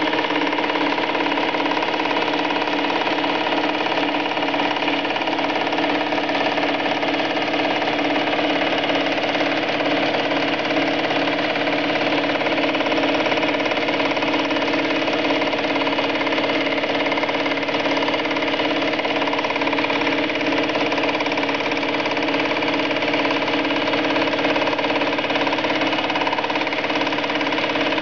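Small metal lathe running a single-point high-speed-steel fly cutter at about 1100 RPM, cutting a gear tooth into a hard aluminium blank: a steady machining hum. The one cutting tip per revolution makes this slower, more vibration-prone cut.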